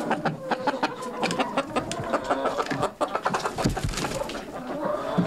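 Chickens clucking: many short clucks in quick succession.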